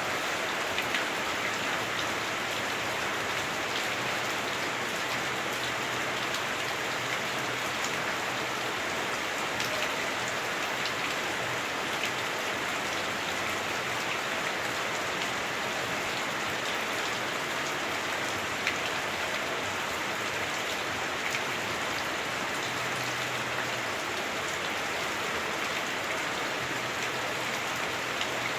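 Heavy rain drumming on a house roof, heard from inside the house: a dense, steady hiss flecked with many small drop ticks.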